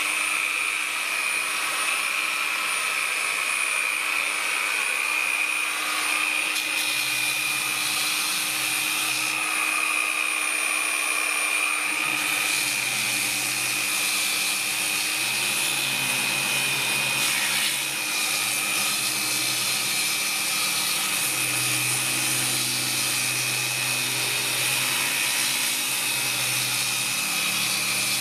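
Water-fed wet angle grinder running at medium speed with a coarse grit-30 diamond pad, grinding the face of an agate: a steady high whine over a dense grinding hiss, its lower hum swelling and fading as the pressure on the stone changes.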